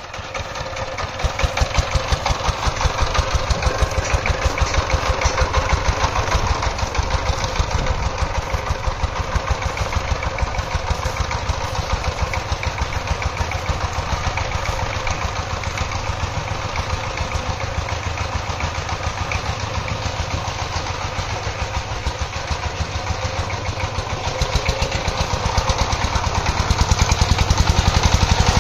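Single-cylinder diesel engine of a two-wheeled power tiller pulling a loaded trolley, running steadily with a rapid, even beat. It grows louder near the end as the machine comes close.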